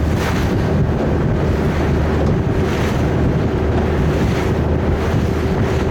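Sightseeing boat's engine running steadily under way, with wind buffeting the microphone and water rushing along the hull, surging a few times.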